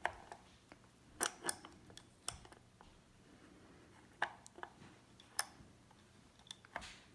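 Adjustable wrench clicking and clinking against a faucet cartridge retaining nut and the chrome faucet body as it is fitted and turned to snug the nut. A handful of short, light clicks spread irregularly over several seconds.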